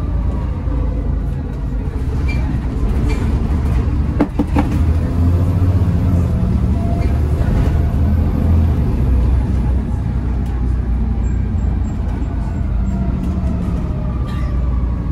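Volvo B7TL double-decker bus's seven-litre six-cylinder diesel engine running while the bus drives, heard from inside the saloon together with road noise and interior rattles. A couple of sharp knocks come about four seconds in.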